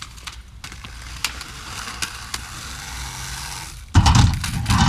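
Skateboard wheels rolling on pavement, with a couple of sharp clicks. About four seconds in, a loud clatter as the board hits the waxed ledge and grinds along it.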